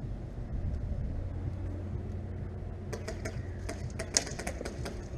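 Wind rumbling on the microphone, then from about three seconds in a quick, irregular run of sharp clicks and ticks, one louder snap just after four seconds.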